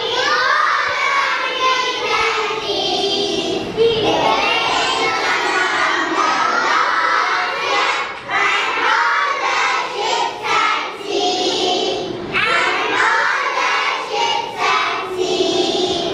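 A class of young children reciting a poem together in unison, a loud chanted chorus of many children's voices.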